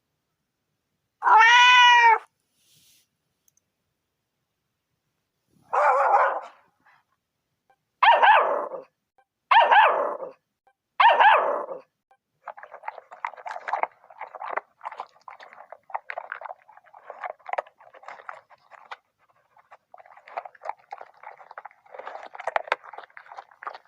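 A run of animal sound effects: a single cat meow about a second in, one dog bark around six seconds, three puppy cries, then a dog eating, with quick crunching and chewing sounds that carry on for the second half.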